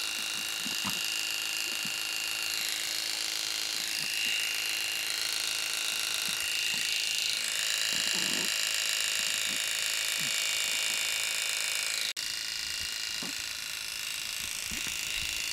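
Electric pet clippers with a 2 mm blade running steadily as they shave through matted fur, their whine shifting in pitch a few times as the blade meets the mats. A brief break comes about twelve seconds in.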